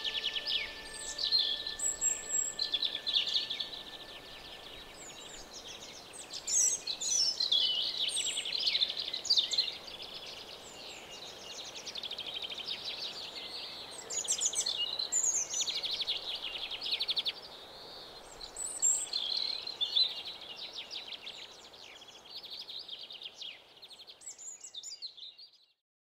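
Woodland birdsong from several birds: a busy mix of chirps and rapid trills that cuts off abruptly near the end.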